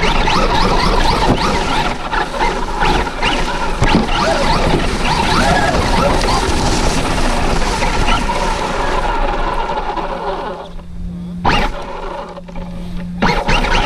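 Onboard sound of a Traxxas Rustler 4x4 RC truck running on 3S through a Castle SW4 speed control: the motor and gears whine, rising and falling with the throttle, over the scrape of tyres through dirt and dry leaves. About ten seconds in it eases off to a low steady hum with a single sharp click, then speeds up again near the end.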